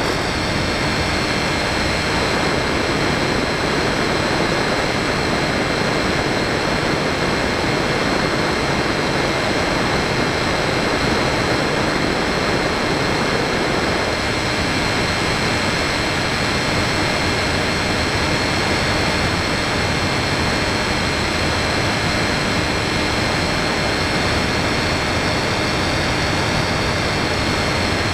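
Steady whine of an Easystar 2 model plane's electric pusher motor and propeller, mixed with wind rushing over the foam airframe, recorded by a camera on board.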